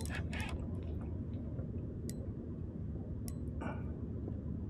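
Low steady background rumble with a few faint, scattered light ticks.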